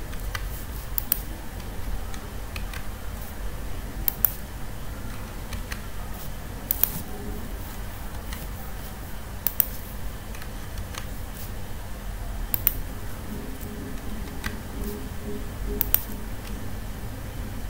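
Computer mouse button clicks, single and in quick pairs, every second or two, over a low steady hum.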